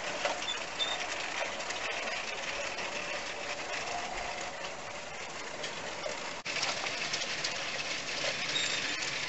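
Garden-scale model train running past on outdoor track: the locomotive's small electric motor whirring and the wagons' wheels rolling and ticking over the rails, steady throughout.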